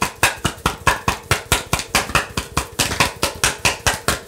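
A deck of tarot cards being shuffled by hand: a quick, even clicking of about seven strokes a second, which stops just after the end.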